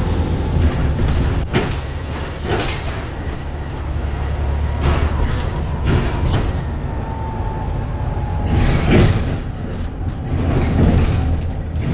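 Bus engine running with a steady low drone, with several short bursts of noise on top, the strongest about nine seconds in.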